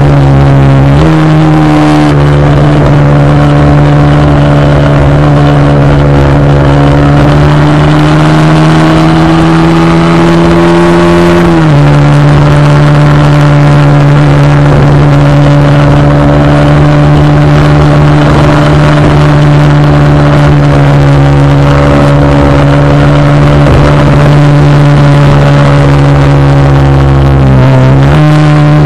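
Motorcycle engine running at a steady cruising speed, a loud droning note with a low wind rumble underneath. Its pitch steps up about a second in, creeps slowly higher, drops abruptly about a third of the way through, then holds level before a brief dip and rise near the end.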